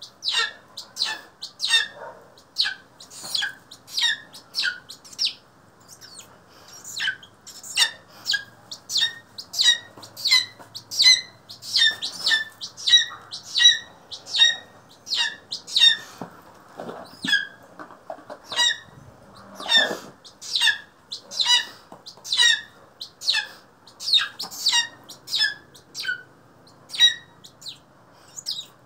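Young black-chested buzzard-eagle (Chilean eagle) calling over and over. Its short, sharp calls each fall in pitch and come about one to one and a half times a second.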